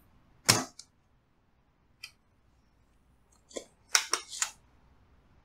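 Manual spring-loaded solder pump firing once about half a second in: a sharp snap with a short rush of air as it sucks molten solder out of a through-hole joint. A few lighter clicks and short rasps follow near the end.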